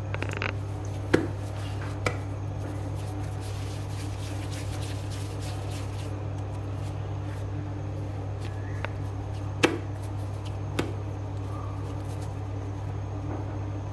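Hands handling and shaping soft yeast pizza dough into balls: faint dough and flour handling noise with a few sharp taps, the loudest about ten seconds in. A steady low hum runs underneath.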